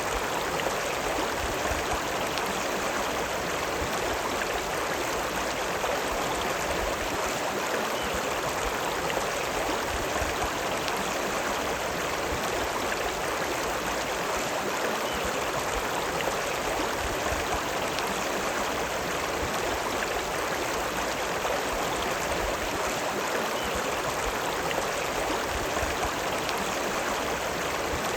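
River water running, a steady, even rush of flowing water.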